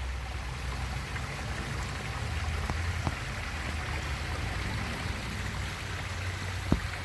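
Water from a small pump-fed backyard pond waterfall running down the falls into the pond, a steady rushing trickle. There is one short click near the end.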